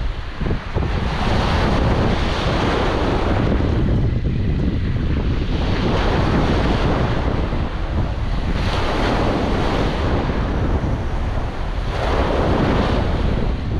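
Surf breaking and washing up a stony beach, swelling and easing about every three to four seconds, with a stiff wind rumbling steadily on the microphone.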